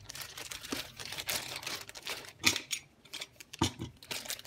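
Thin clear plastic bag crinkling as the multimeter wrapped in it is handled, with two sharper clicks about two and a half and three and a half seconds in.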